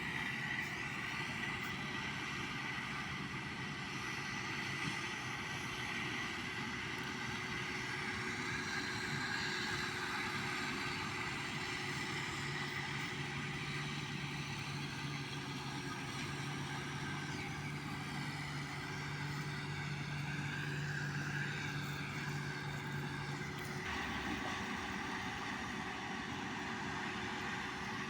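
Tractor engine running steadily while driving a baler, a continuous mechanical drone with a steady hum; the sound changes abruptly about 24 seconds in.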